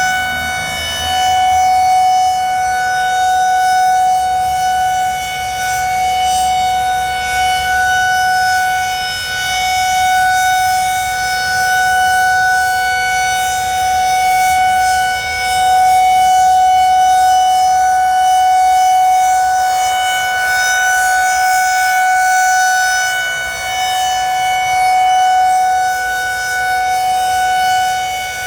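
Federal Signal 2001-SRNB rotating outdoor warning siren sounding a steady alert tone at full speed, one unchanging high pitch whose loudness swells and fades every few seconds as the rotating head sweeps past.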